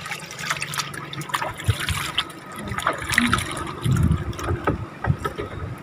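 Water splashing and trickling, with scattered light knocks and clicks.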